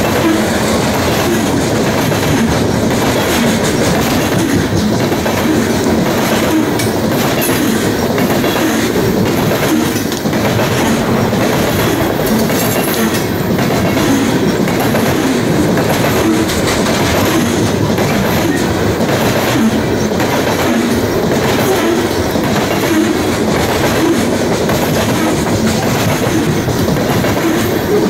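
Loaded coal hopper cars of a long freight train rolling past, their steel wheels running steadily over the rails, with wind buffeting the microphone.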